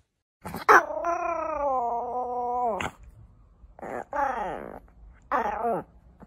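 Small Yorkshire terrier vocalizing as if talking: one long wavering call of about two seconds, then two shorter calls that fall in pitch.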